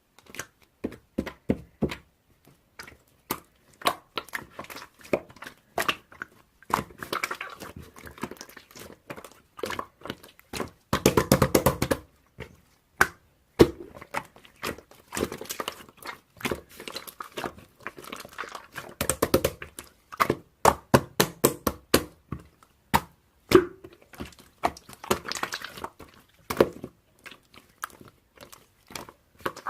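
Irregular close-up clicks, taps and crackles, with a few denser crunchy stretches.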